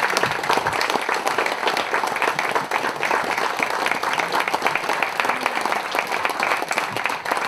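Audience applauding: a dense, steady patter of many people clapping their hands.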